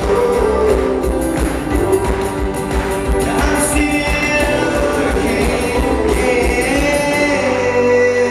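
Live rock band playing with sung vocals over a steady drum beat; the drums drop out about seven seconds in, leaving held chords and voice.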